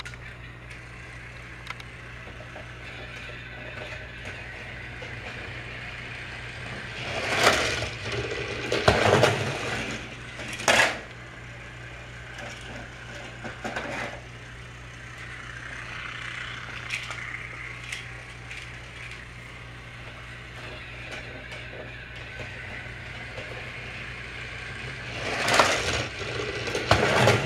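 Battery-powered Trackmaster toy train running on plastic track: a steady low hum under rattling and clattering, with loud bursts of clatter about seven to eleven seconds in and again near the end as the train crosses the bridge.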